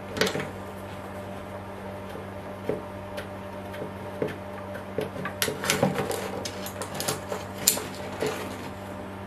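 Light metallic clicks and clinks of a hex key turning and handling the small screws that fasten a milling machine's bellows cover, getting busier in the second half, over a steady low hum.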